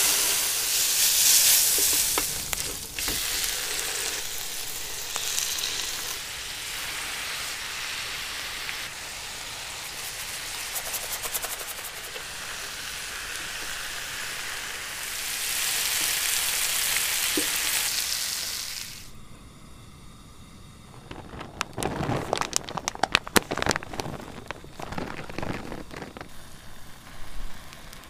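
Minced garlic and then an octopus tentacle sizzling in hot oil on a flat griddle pan. The sizzling is loudest at the start and stops about 19 seconds in. A stretch of sharp, irregular crackles and knocks follows.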